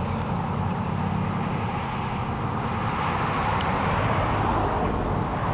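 Steady road traffic noise: a continuous rush of passing vehicles over a low engine hum.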